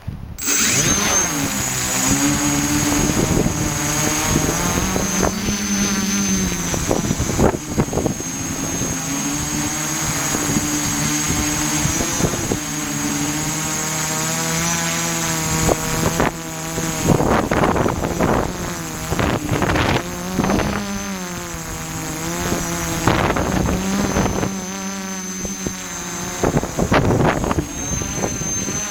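Quadcopter's electric motors and propellers start up abruptly and run through a flight, their whine rising and falling as the throttle changes while the craft fights strong wind. Heard from the onboard camera, with repeated wind buffeting on its microphone.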